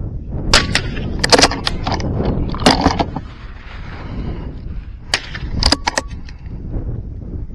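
.22 LR rimfire rifle shots: about eight sharp cracks at irregular intervals, some in quick pairs.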